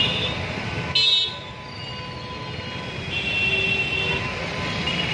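Busy road traffic at a junction, engines running, with vehicle horns honking several times; the loudest is a short blast about a second in.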